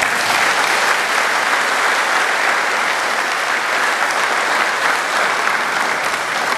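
Audience applauding steadily with dense clapping that eases slightly near the end.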